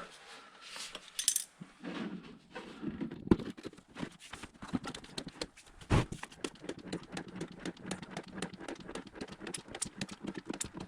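Rapid, irregular clicking and light rattling while transmission fluid is fed into a HMMWV transmission through a hose, close to full. There is a single louder knock about six seconds in.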